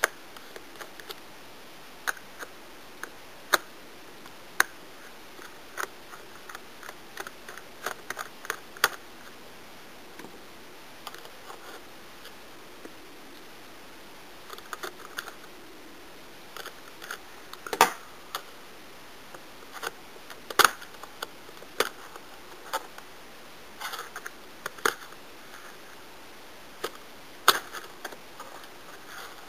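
Small Phillips screwdriver unscrewing the screws of a laptop's RAM compartment cover: irregular light clicks and ticks of metal against screw and plastic, with a few louder clicks scattered through.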